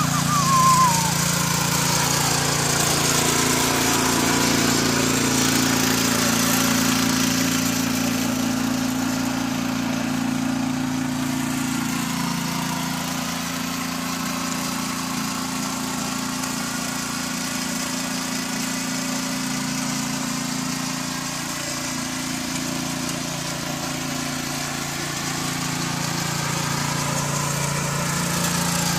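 The small petrol engine of a KisanKraft KK-IC-200P inter cultivator runs steadily under load while its rotary tines till soil.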